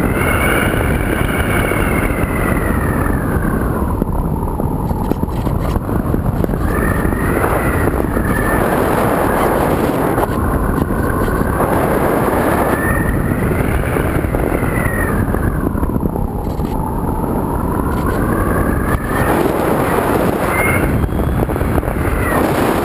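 Electric motor and propeller of a Multiplex EasyStar RC plane heard from on board: a whine that sweeps slowly up and down in pitch, high near the start and again in the middle, lower in between. Heavy wind noise on the microphone runs under it.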